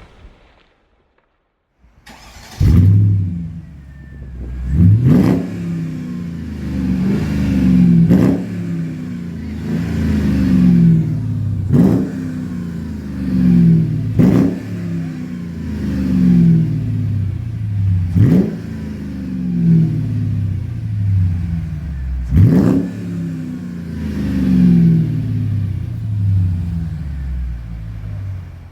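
Mercedes CL500 V8 heard through a cat-back stainless steel exhaust. It fires up about two seconds in and is then revved over and over in short throttle blips, roughly one every two seconds.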